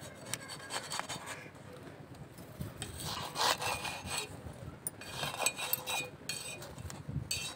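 Knife blade scraping under a naan on a tawa, prying it loose from the griddle in a few irregular strokes.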